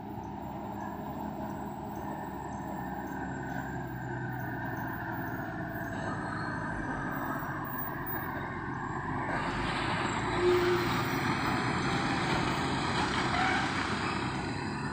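Loaded Tata heavy truck's diesel engine running as the truck works round a bend, growing louder as it approaches. It is loudest as it passes about ten seconds in, with a rush of noise, then starts to fade as it pulls away.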